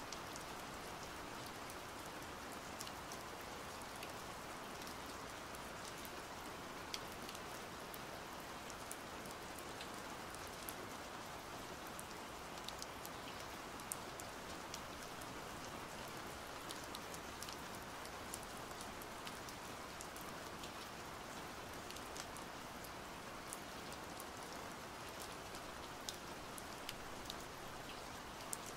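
Steady rain, a constant even hiss dotted with scattered sharp drips and taps.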